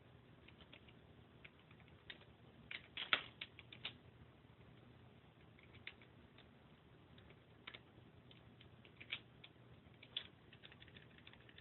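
Faint, irregular keystrokes on a computer keyboard, typed slowly with one hand. A quick run of clicks comes about three seconds in, and more scattered groups follow.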